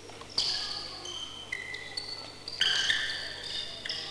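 Sneaker soles squeaking on a sports-hall floor during fast footwork: several short squeaks, each holding one high pitch, with sharp clacks among them, the loudest a little after halfway through.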